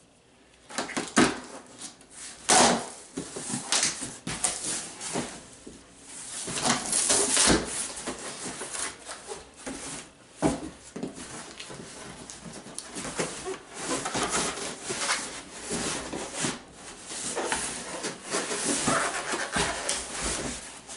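Cardboard shipping boxes being opened and unpacked by hand: flaps pulled open and smaller boxes scraping, sliding and knocking against each other as they are lifted out, with a few sharp knocks.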